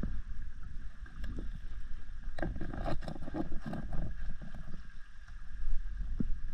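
Underwater sound through a diving camera's waterproof housing: a dull, low rush of moving water, with a run of knocks and scrapes about two to four seconds in.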